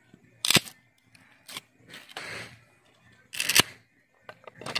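Pieces of firewood knocking and scraping as a small wood fire is tended, with two sharp knocks about three seconds apart and softer rustling between.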